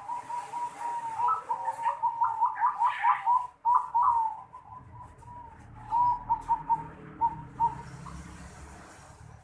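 Zebra dove (perkutut) singing the unusual 'noklak' voice: a quick run of short, clipped coos at one pitch for about four seconds, then after a pause a sparser run of separate notes.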